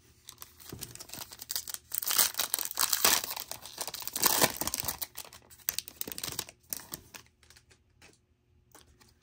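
A foil trading-card pack being torn open and its wrapper crinkled: a dense crackling that builds to its loudest in the middle and thins to a few scattered crinkles over the last couple of seconds.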